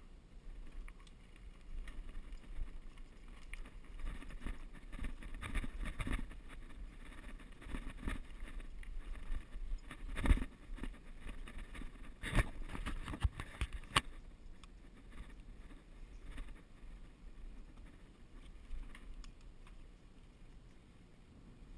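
Mountain bike rolling fast over a bumpy dirt trail, heard from a camera mounted on the bike: tyre noise with irregular rattles and knocks from the frame and mount, and a few sharp jolts in the middle.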